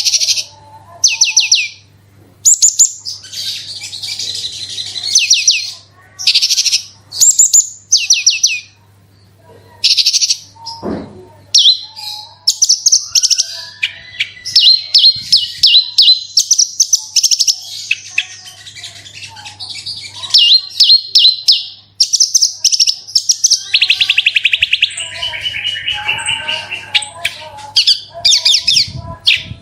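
Javan bush lark (branjangan) singing: loud bursts of very fast trilled notes, each about a second long, in quick succession. In the second half the bursts run together into a long stretch of rapid rolling song.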